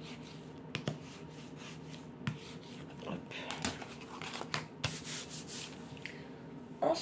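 A stick rubbed and scraped along taped cardboard to crease the fold lines, with short scrapes and light taps, then the cardboard bent along its creases and laid down.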